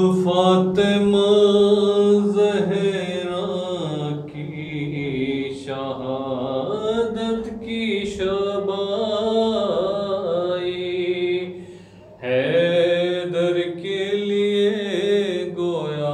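A man singing a noha, a Shia lament, unaccompanied, in long, drawn-out lines with wavering held notes. He breaks off briefly about three-quarters of the way through, then takes up the next line.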